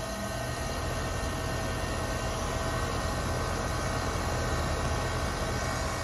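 2018 Daikin DX13 5-ton three-phase air-conditioner condensing unit running just after starting up: a steady compressor and fan hum with a few steady tones, slowly getting louder.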